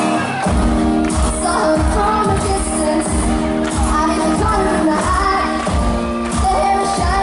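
Live pop song: a young male singer singing into a microphone over acoustic guitar, with a steady beat coming in about half a second in.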